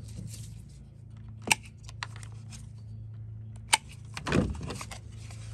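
Cutters snipping through the battery's wires, two sharp snaps about a second and a half and nearly four seconds in, with a smaller click between them and a brief rustle of wire and plastic being handled near the end, over a steady low hum.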